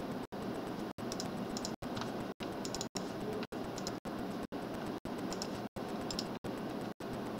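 Steady low background noise, cut by short dropouts nearly twice a second, with a few faint light clicks of a computer being operated.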